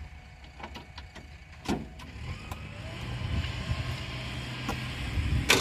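Kubota B2441 compact tractor's three-cylinder diesel engine running, getting louder over the second half, with a sudden rise just before the end.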